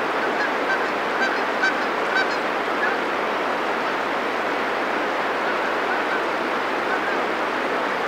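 Canada geese honking over the steady rush of river rapids. The honks come often in the first three seconds, then only now and then.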